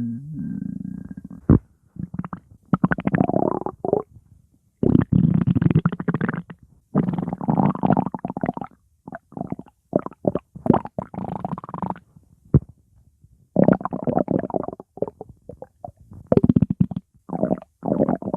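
Stomach growling: a string of irregular gurgling rumbles, some lasting a second or more and others in short bursts, with brief gaps between. A steady tone ends about a second and a half in.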